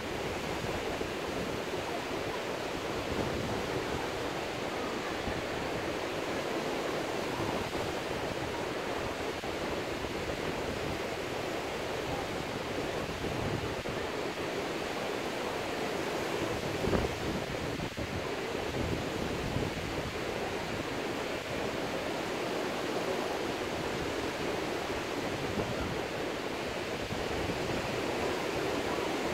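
Ocean surf breaking on a sandy beach, a steady wash of waves, with wind buffeting the microphone and one brief louder thump a little past the middle.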